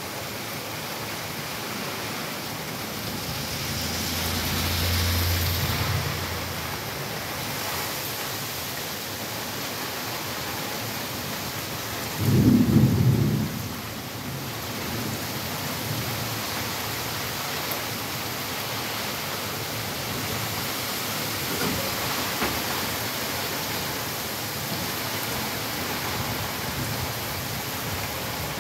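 Heavy rain pouring steadily onto paving, grass and leaves. A low rumble swells about four to six seconds in, and a short, loud low burst comes about twelve seconds in.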